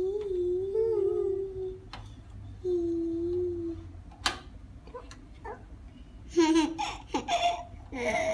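A toddler's voice humming and babbling in long drawn-out tones, with one sharp tap just after four seconds in, then a lively burst of giggly vocalising near the end.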